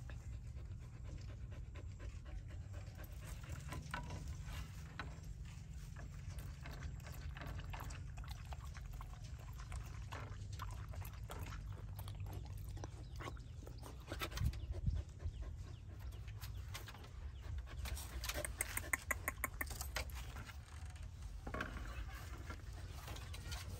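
A husky eating and licking a ceramic plate on a bamboo deck: small wet clicks and licks, with a quick run of clicks about three-quarters of the way in.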